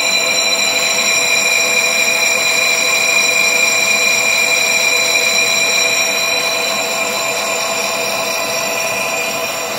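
Lathe tool skimming the braking face of a warped VW Golf 4 cast-iron brake disc, the spinning disc giving a steady, high-pitched metallic ringing whine that eases slightly near the end. The disc is being resurfaced because it was out of true and vibrated under braking.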